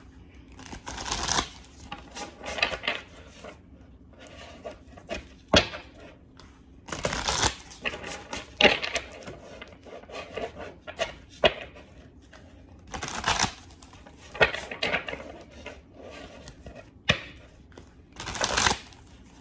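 A deck of tarot cards being shuffled by hand: irregular bursts of cards rustling and flicking against each other, with a few sharp clicks in between.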